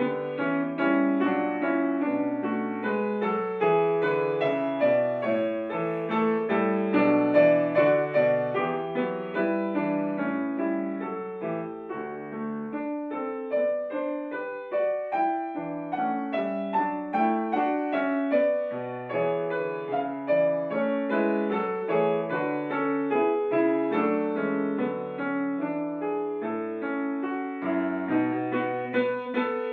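Grand piano played solo: a continuous classical piece with many quick notes moving over a lower line.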